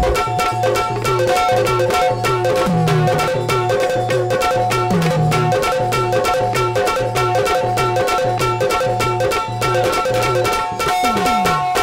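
Instrumental break in a Marathi devotional song: a dholki hand drum playing a fast, steady rhythm with a pulsing deep beat, under long held keyboard chords.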